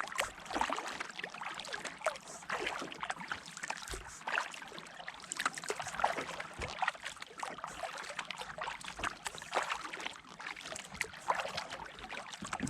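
Water splashing and trickling around a kayak as it is paddled, in short irregular splashes.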